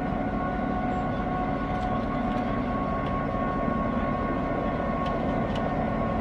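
EMD GP7 diesel-electric locomotive moving slowly, its 16-cylinder two-stroke 567 prime mover running with a steady drone and a steady high-pitched whine over it. A few faint clicks come through the middle.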